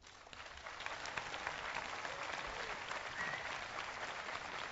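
A large audience applauding, the clapping swelling over the first second and then holding steady.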